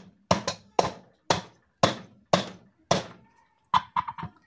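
Repeated sharp knocks on a ceiling fan motor's cover as it is tapped down into place, about two a second, then four quick ones near the end.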